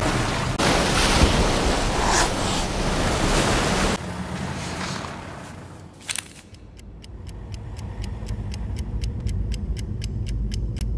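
A steady rushing hiss of steam or smoke pouring from a disabled car. About four seconds in it cuts to a quieter stretch, where a fast, even ticking of four or five ticks a second grows slowly louder.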